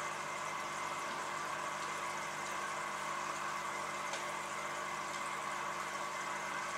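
Steady hum and water hiss from a running aquarium, its pump humming under an even wash of moving water.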